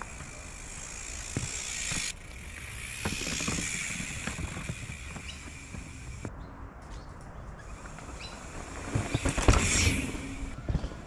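Mountain bike and rider on a dirt trail: scattered clicks and crunches, building to a louder rushing sound about nine seconds in.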